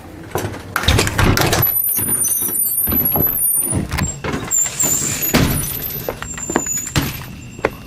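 Hula Hoops ground-spinner fireworks burning: a loud rushing hiss from about a second in until near the end, with thin, very high wavering whistles partway through.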